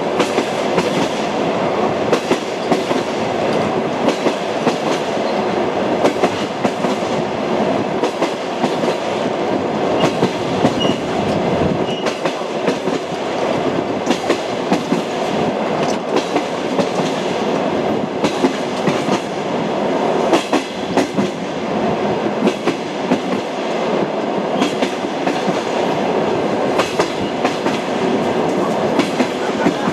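Railway carriage wheels clattering over rail joints: a steady rumble broken by frequent short knocks.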